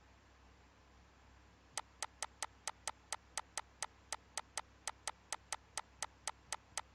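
A rapid, evenly spaced run of sharp clicks, about four or five a second, starting a couple of seconds in over a faint room hum.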